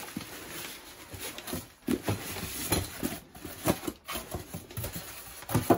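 Packing being pulled out of a cardboard box: plastic wrapping crinkling and polystyrene rubbing against cardboard, in uneven rustles with scattered small knocks and scrapes.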